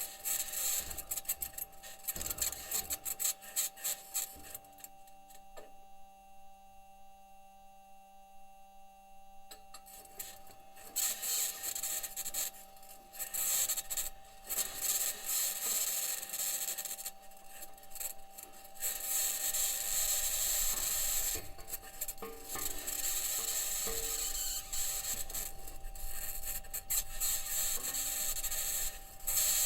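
Audio from NASA's Perseverance rover on Mars: harsh scraping and rasping that comes and goes, over two steady humming tones. It is typical of the rover's own microphone recording its wheels grinding over rock while it drives. The scraping drops to a quieter lull about five seconds in and comes back a few seconds later, growing more continuous in the second half.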